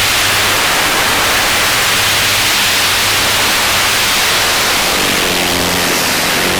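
Tarot 650 multirotor in flight, heard from its onboard camera: a steady rushing hiss of propeller wash and wind over a low motor hum. Near the end the motors' whine comes up as a steadier tone.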